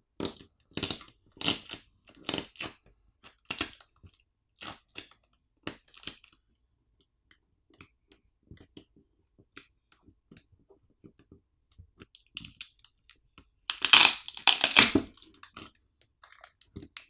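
Battery adhesive crackling and tearing as the pull tab peels a Samsung Galaxy S24 FE's battery off the frame, with the plastic tab crinkling: irregular crackles through the first six seconds, scattered faint ticks, then a louder stretch of crackling about fourteen seconds in.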